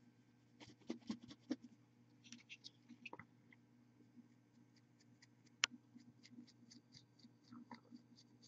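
Faint scratching and small clicks of a paintbrush working over a plastic miniature held in the fingers, over a steady low hum. One sharper click comes about five and a half seconds in.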